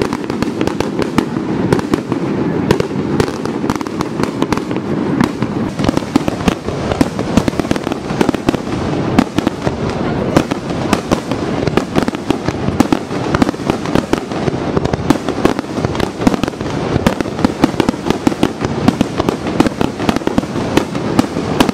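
Fireworks finale barrage: dense, rapid bangs and crackles of many aerial shells bursting at once, many reports a second without a break, over a continuous rumble.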